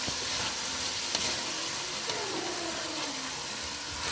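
Cut green beans sizzling in hot oil and garlic in a stainless steel pot as a wooden spatula stirs them, a steady frying hiss with a light knock of the spatula about a second in.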